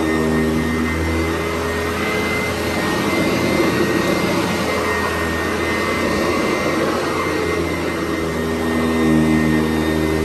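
Sanitaire SC889B commercial upright vacuum running as it is pushed over the floor: a steady motor whine, with a lower hum that fades in the middle and comes back near the end.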